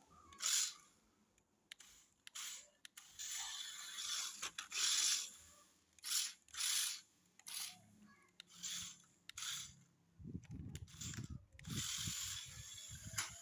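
Remote-control toy off-road car's small electric motor and gearbox whirring in short, irregular bursts as it is driven in spurts, with a low, choppy rumble during the last few seconds.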